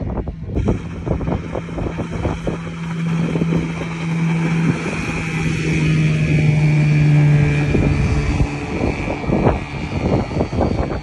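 Small boat under way on an outboard motor: a steady engine hum that drops out about three-quarters of the way through. Wind buffets the microphone, and there are many short knocks throughout.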